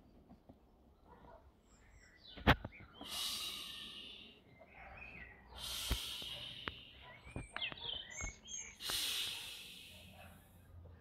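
Breaths blown by mouth into the valve of a vinyl inflatable swim ring: three long rushes of air about three seconds apart. Small squeaks and clicks of the vinyl being handled, with a sharp knock about two and a half seconds in.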